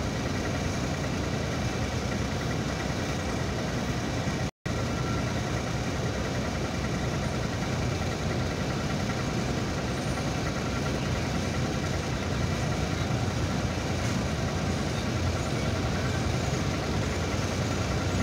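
Ship's diesel engine droning steadily, with a brief dropout in the sound about four and a half seconds in.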